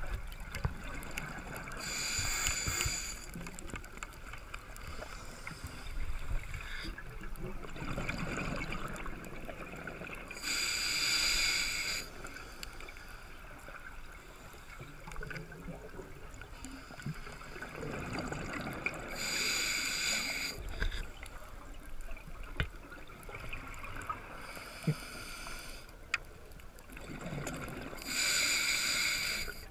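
Scuba diver breathing through a regulator underwater: four loud bursts of exhaled bubbles, one about every eight or nine seconds, each lasting about a second and a half, with quieter breathing noise between.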